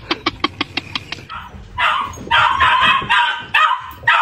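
A dog barking in a quick series of short, loud barks and yips. Before them, a fast, evenly spaced run of pitched pulses fades out in the first second.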